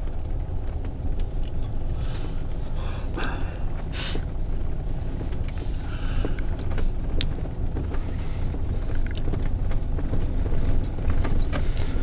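Low, steady rumble of a vehicle driving slowly over an unpaved dirt road, with scattered knocks and rattles.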